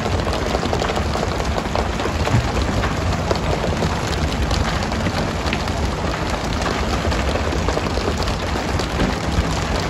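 Steady hiss of water spray pattering on the sea, with skipjack tuna slapping and thudding onto the deck one after another, over a low rumble.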